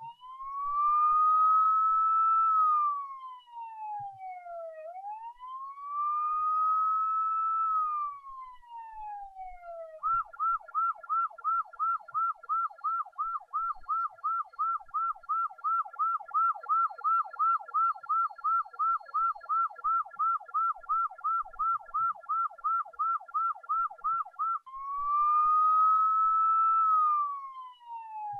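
Police car siren sounding in its slow wail, rising and falling about every five seconds. About ten seconds in it switches to the fast yelp, about three warbles a second for some fifteen seconds, then goes back to the slow wail.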